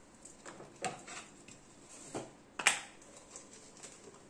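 A few short clicks and knocks of kitchen containers and utensils being handled while spices are added to a steel mixing bowl, the loudest knock about two and a half seconds in with a brief ring after it.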